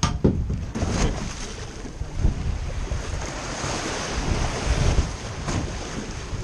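Wind buffeting the microphone over sea water sloshing and splashing against a boat's hull, with a sharp bump right at the start.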